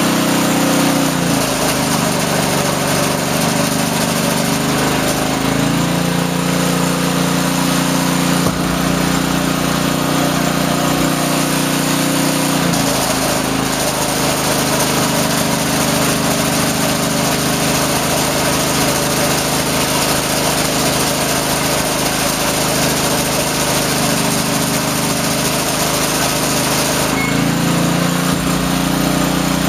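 Small garden tractor engine of a 1954 Montgomery Ward Chor-Trac running after a points and carburetor tune-up, with its speed dipping and recovering several times.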